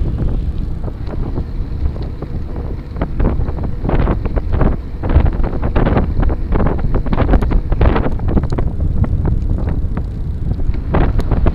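Wind buffeting the microphone of a gravel bike riding over a rough trail, with frequent short knocks and rattles from the bike jolting over the surface.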